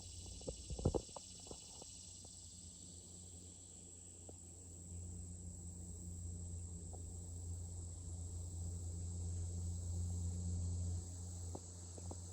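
Insects chirring in a high, even band that fades after the first couple of seconds. Under them runs a low steady rumble that grows louder, with a few sharp clicks about a second in.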